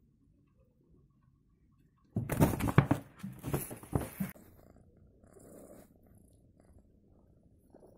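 Domestic cat purring right at the microphone, a loud stretch of about two seconds that starts a couple of seconds in.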